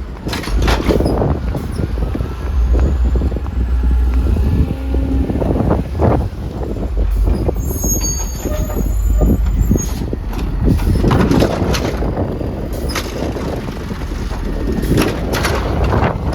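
Garbage truck at work: its engine runs under repeated clanks, with a brief hiss about eight seconds in, while wind buffets the microphone with a low rumble.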